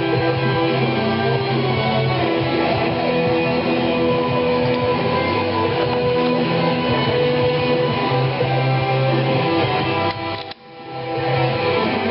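Background music led by strummed guitar, with a brief break about ten and a half seconds in.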